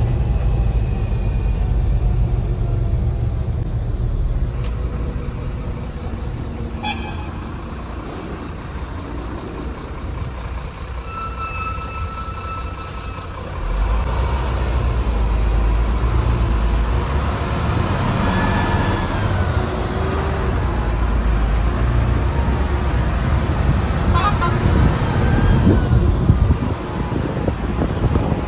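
Mercedes-Benz bus's diesel engine running under load, heard from the driver's cabin, with a horn sounding for about two seconds just past the middle. About fourteen seconds in, the engine gets louder and a high steady turbo whistle comes in.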